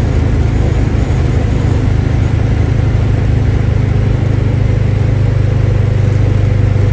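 Classic Volkswagen with a Pertronix electronic ignition cruising on the open road, its engine running steadily under a low hum of engine and road noise heard from inside the cabin.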